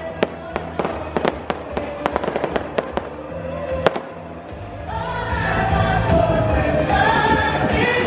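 Fireworks popping and crackling in quick, irregular bangs over music for the first few seconds, the loudest bang near four seconds in; then the pops die away and music with a melody rises.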